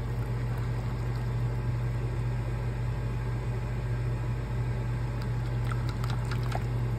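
A silicone whisk stirring thin gravy in a pot, soft liquid sloshing with a few light taps against the side of the pot near the end, over a steady low hum.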